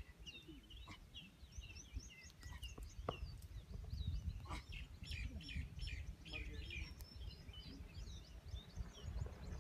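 Many small birds chirping in quick, overlapping calls, over a steady low rumble.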